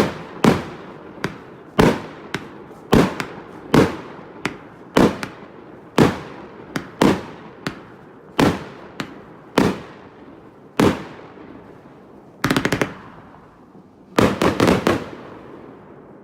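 30 mm consumer firework cake (Klasek Garden Fireworks, 128 shots) firing: a string of sharp bangs, about one or two a second, each with a short fading tail. About two-thirds of the way through comes a brief rapid crackle, and near the end a quick cluster of several bangs.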